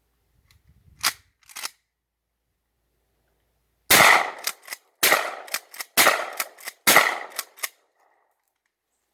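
Shotgun fired four times about a second apart, each shot followed by a short rattle of echoes, after two light clicks about a second in.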